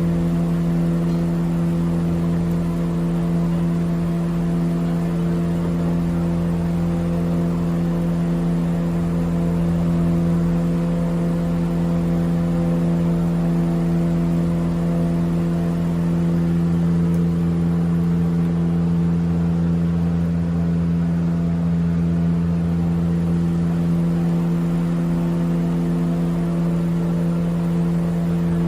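A running motor droning steadily at one low pitch, with a rougher rumble underneath that swells and fades slightly.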